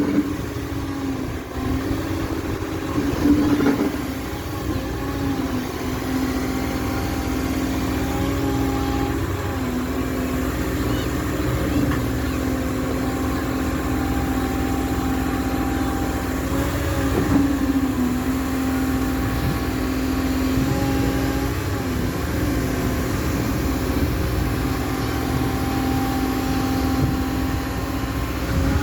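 Cat M315F wheeled excavator running steadily as it works, its engine and hydraulics holding one even tone that sags briefly every few seconds under load. A few knocks sound in the first few seconds.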